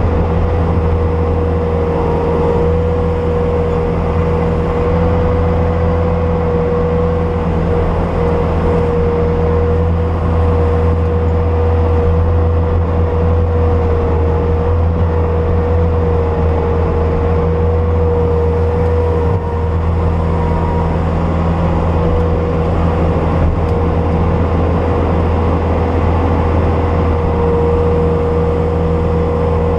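Bobcat S250 skid steer's diesel engine running steadily, a low drone with a steady whine above it.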